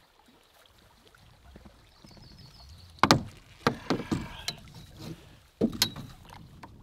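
A snagged branch pulled up on the fishing line, knocking against the canoe as it is hauled in by hand: a cluster of sharp wooden knocks about three seconds in and another near the end.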